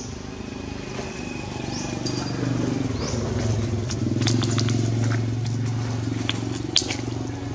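An engine running steadily, growing louder toward the middle and then easing off a little, with a few sharp clicks over it, one louder near the end.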